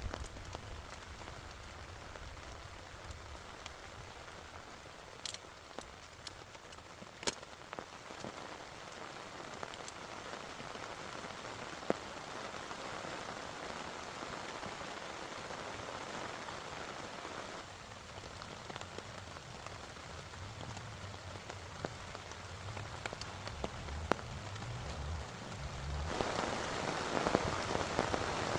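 Heavy rain falling steadily, with scattered sharp drop impacts; it gets louder near the end.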